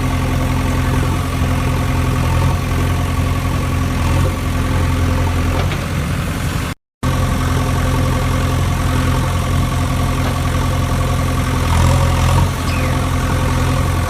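Steady idling engine sound, a low even drone that holds one pitch throughout. It cuts out completely for a split second about halfway through, then carries on the same.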